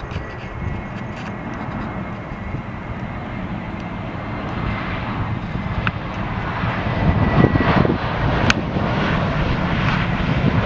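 Airplane engine noise growing steadily louder as the aircraft comes closer.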